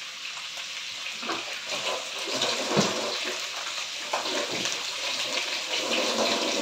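Kitchen tap running into a sink while greens are rinsed, a steady splashing hiss with a few light knocks of bowl and hands.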